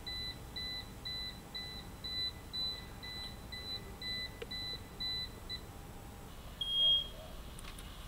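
Electronic warning beeper sounding a rapid run of short, evenly spaced beeps, about three a second, that stops about five and a half seconds in; near the end comes one longer, higher and louder beep.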